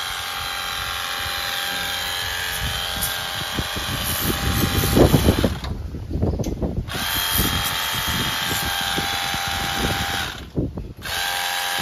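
Handheld electric power tool motor running with a steady whine, cutting out briefly about six seconds in and again near the end. A burst of loud clattering comes around the middle as it works against a part.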